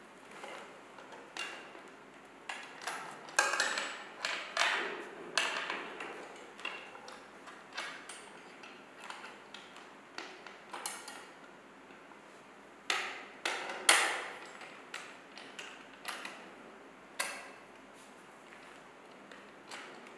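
Irregular clicks, knocks and light metal rattles from a thin metal connector rod being fitted into a wooden table leg on a metal cross support. The strokes come in clusters, loudest a few seconds in and again about two-thirds of the way through.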